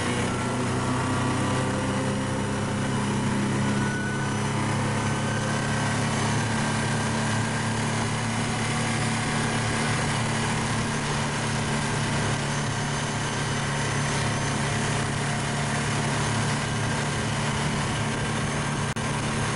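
Motorboat engine running at a steady, even speed while towing a water-skier, heard from aboard the boat, with the rush of the wake and spray over it.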